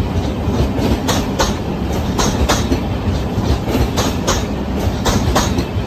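Indian Railways passenger coaches rolling past with a steady low rumble. Their wheels clack over the rail joints in quick pairs, about one pair a second.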